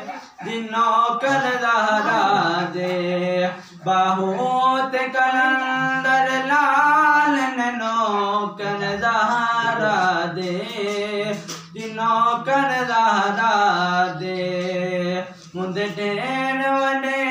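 A man's solo voice reciting a naat unaccompanied, in long sung phrases that glide up and down in pitch, with short pauses for breath between them.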